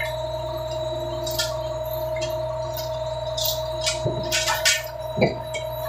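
Fishing boat's engine and deck machinery running with a steady hum and whine. From about four seconds in, a run of knocks and clatters as the trawl net with its floats and metal rings runs out over the stern.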